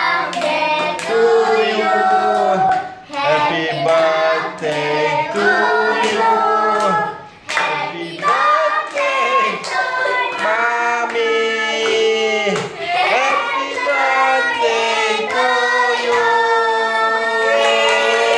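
A group of children and adults singing a birthday song together, clapping along in time.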